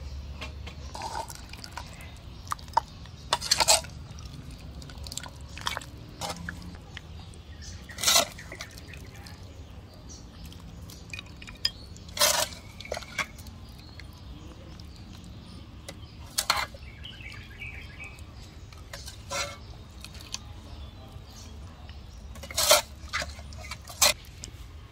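Short clinks and clatters of a cooking utensil against cookware every few seconds, with liquid splashing, as soup is worked in the pot.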